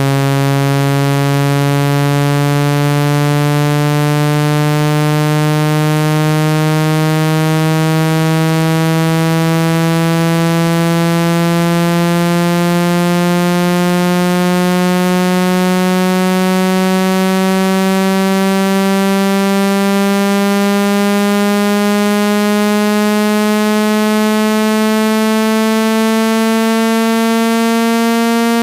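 Speaker-cleaning water-eject tone: one loud, buzzy low tone rich in overtones, rising slowly and smoothly in pitch at a steady volume. It is played to shake water and dust out of a phone or device speaker.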